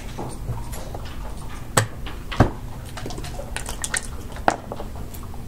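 Backgammon checkers clacking down on the board as a move is played, including a hit that sends a red checker to the bar. Several sharp clicks, the loudest about two and a half seconds in, with quicker small ticks just before four seconds.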